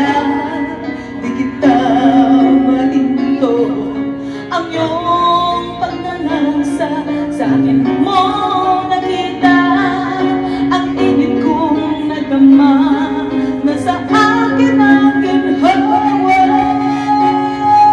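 A woman singing live through a microphone with amplified electric guitar accompaniment, her melody lines rising and falling with long held notes.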